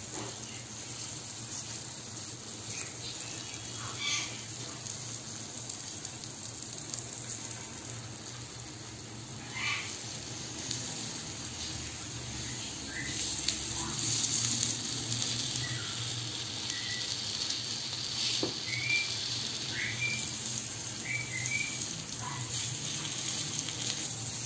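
Hot oil sizzling steadily as unniyappam fry in a cast-iron appam pan, a little louder from about halfway through. A few light clicks come from a metal skewer turning the fritters in the pan.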